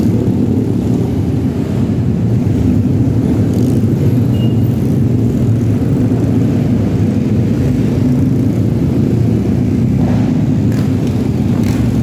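Many motorcycle engines idling together in a packed group of bikes, a steady low rumble.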